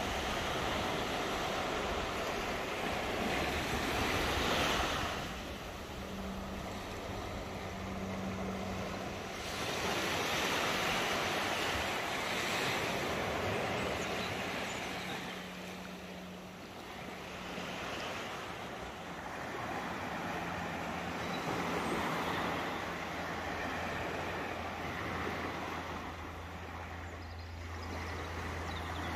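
Small waves breaking and washing up a sandy beach, the surf swelling and falling every few seconds.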